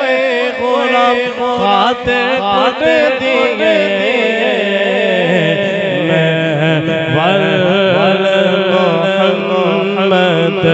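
A man singing a naat, a devotional song in praise of the Prophet Muhammad, into a microphone, in long wavering held notes.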